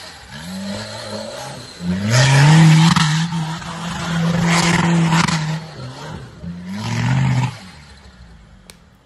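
Off-road 4x4 engine revving in repeated rising surges as the vehicle spins its wheels through tall grass, held at high revs for a few seconds in the middle with a loud rush of tyres and grass. It cuts back near the end.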